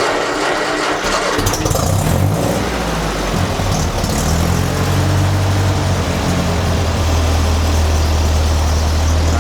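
1955 Ferguson TEA-20 tractor's four-cylinder petrol engine starting again after running out of gas. It catches about a second in, its speed rises and falls for a few seconds, then it settles into a steady idle.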